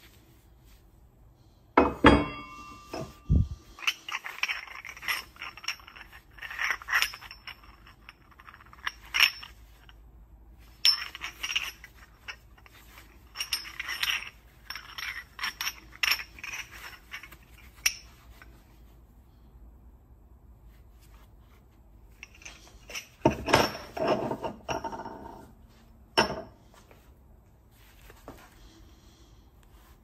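Cast aluminium bronze coins clinking and scraping against one another as they are handled, with quick metallic clicks in two busy spells. About two seconds in there is a sharp metal knock that rings briefly.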